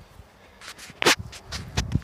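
Footsteps on gravel and dry grass: several short, uneven steps in the second half, the loudest about a second in.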